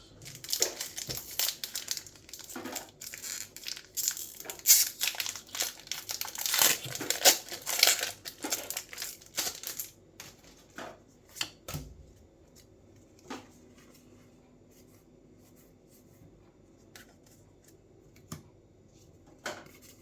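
Crinkly plastic wrapper of a Lorcana trading card booster pack being torn open and crumpled for about ten seconds, followed by a quieter stretch of a few scattered light taps.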